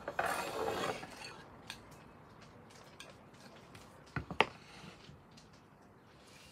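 Handling noise as a model airliner is fitted onto its display stand: a brief scraping rustle at the start, then a few small clicks and two sharp knocks about four seconds in.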